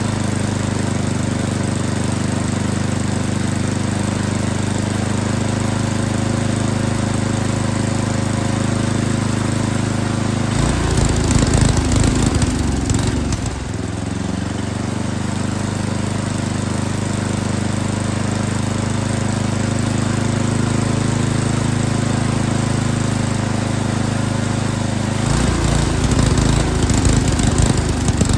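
Yardking snowblower engine running steadily, turning rougher and louder for a few seconds about ten seconds in and again near the end, as the carburetor's mixture screws are turned to tune it.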